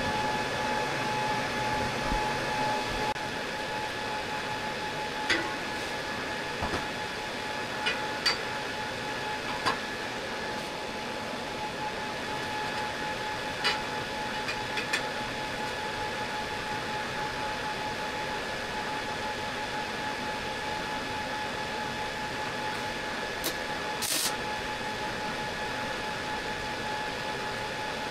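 Steady machine hum with a constant high whine running under it, like a shop fan or air handler. A handful of short, sharp metallic clicks and taps stand out here and there, the clearest around a quarter of the way in and again near the end.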